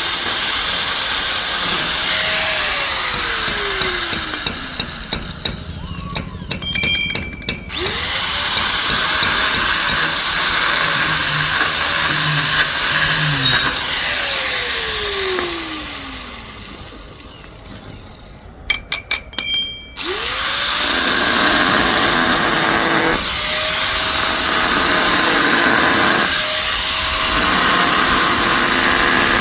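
Electric drill boring into granite, a dense grinding whine; twice the motor is let off and winds down with a falling pitch, then restarts with a rising whine and bites back into the stone.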